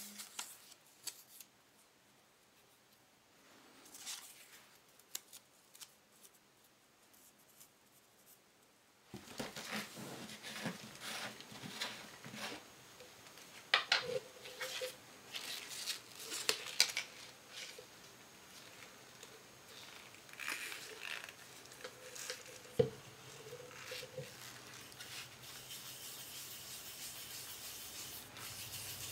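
Handling noises at a leatherworking bench: irregular clicks, taps and rustles of gloved hands working a leather dye bottle and dauber on a veg-tanned leather strap. They start about nine seconds in after near-quiet, with a couple of brief squeaks and two sharper taps standing out.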